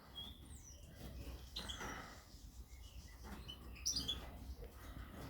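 Caged finches and canaries calling: short, high chirps and a few quick down-slurred notes, scattered and faint, with a little cluster of calls about four seconds in.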